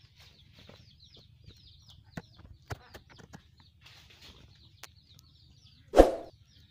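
Birds chirping over and over in short high calls, with chickens clucking. A short loud sound cuts in about six seconds in.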